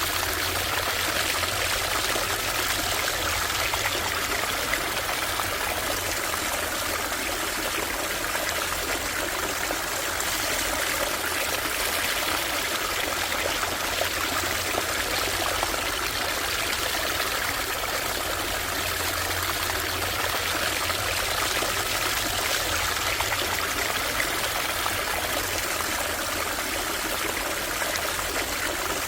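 A shallow stream running steadily over stones, a continuous trickling and babbling.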